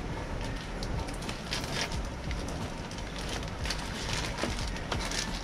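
Clear plastic bag crinkling and rustling while being handled and cut with scissors: a run of small, irregular crackles and ticks.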